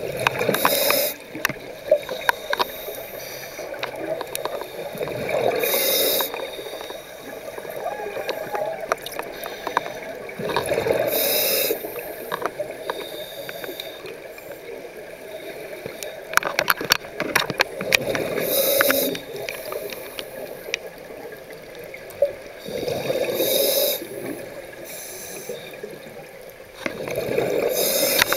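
Scuba diver breathing through a regulator underwater: a gurgling rush of exhaled bubbles about a second long every four to six seconds, with small clicks and crackles in between.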